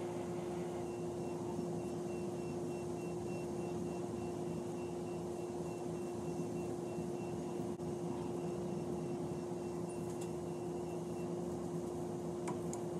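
A steady hum at one constant pitch, like a motor or appliance running without change.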